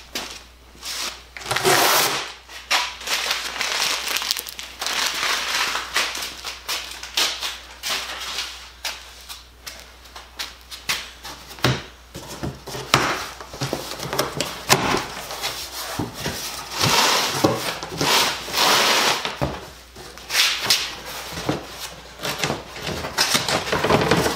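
A large cardboard shipping box being opened by hand: packing tape torn and cardboard flaps pulled open, with irregular scraping, rustling and sharp cardboard clicks and knocks.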